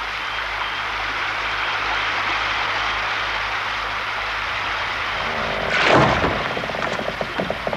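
Steady rushing noise of a small wooden sailboat moving along a river, with a brief louder surge about six seconds in, followed by a run of light quick knocks.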